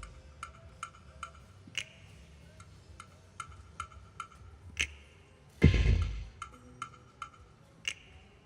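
Slot machine sound effects: a steady run of short ticks, about three a second, with one louder low thud about five and a half seconds in.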